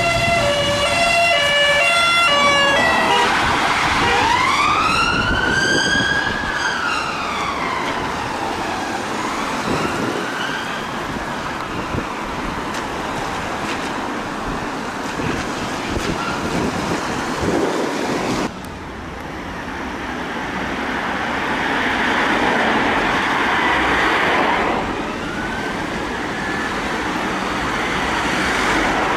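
Emergency vehicle sirens in road traffic: a fast two-note hi-lo siren that switches to a rising and falling wail, with tyre and engine noise. The sound changes abruptly about two-thirds of the way in, and a fainter siren wails near the end.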